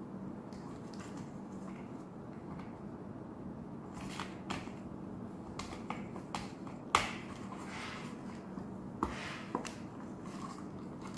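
Plastic filter cartridge being twisted onto the bayonet mount of a 3M 6200 half-face respirator: scattered light clicks and rubbing of plastic parts, the sharpest click about seven seconds in.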